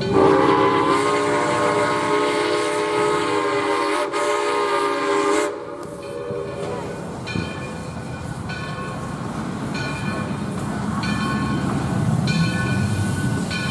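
A steam whistle sounds one long, multi-note blast of about five seconds. After a break, an approaching steam locomotive gives several shorter whistle blasts, and the low rumble of the train grows toward the end.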